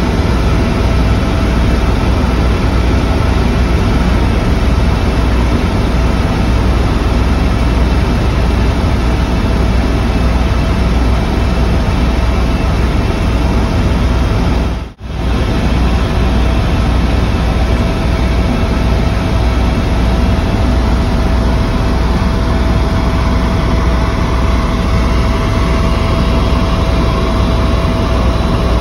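Helicopter in flight heard from inside the cabin: a loud, steady drone of engine and rotor, heaviest in the low end, with a faint steady high tone above it. The sound drops out briefly about halfway through.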